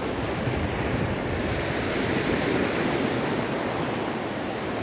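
Sea surf washing steadily onto a shallow beach, with wind buffeting the microphone.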